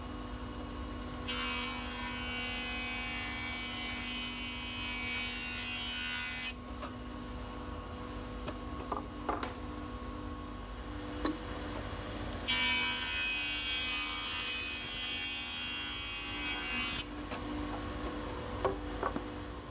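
Jointer with a helical insert cutterhead running with a steady hum, while a board is fed over the cutterhead twice, each pass a loud planing noise lasting about five seconds, the first starting about a second in and the second about twelve seconds in.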